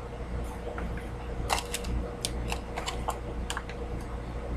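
Someone chewing a chewy fruit snack close to the microphone: irregular small mouth clicks over a steady low room hum.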